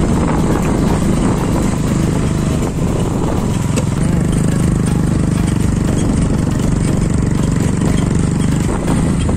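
Motorcycle engine running steadily at cruising speed, heard from on the moving bike.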